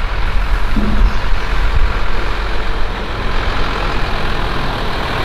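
Diesel engine of a Mercedes-Benz horse truck running steadily as the truck drives up close, with a deep low rumble.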